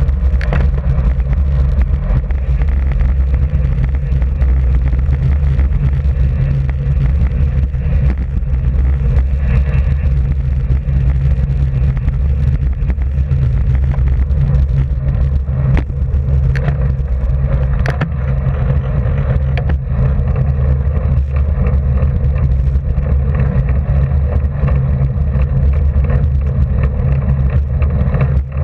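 Steady low rumble of wind buffeting a bicycle-mounted camera's microphone as the rider moves along the road, with a few light clicks around the middle.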